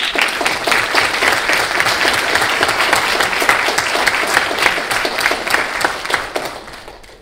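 Audience applauding: dense clapping that starts all at once and dies away over the last second or so.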